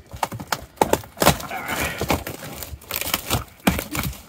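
Clear plastic stretch wrap and packing tape being torn and pulled off a cardboard box, with a run of irregular crinkles, crackles and rips.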